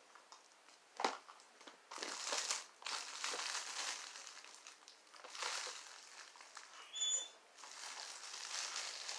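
Faint rustling and crinkling of packaging in uneven bursts as someone rummages through a box, with a brief high squeak about seven seconds in.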